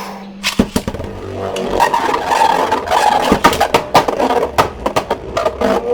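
Two 3D-printed Beyblade Burst tops launched into a plastic stadium, landing with a sharp hit about half a second in. They then spin and clash, with many rapid hard knocks and scraping over a steady whirr.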